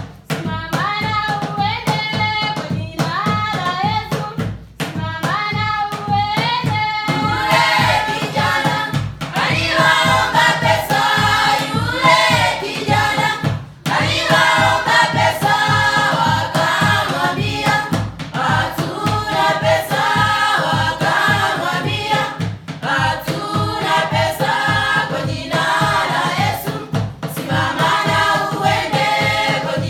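Choir singing over a steady beat. A thinner vocal line leads at first, and a fuller group of voices joins about seven seconds in.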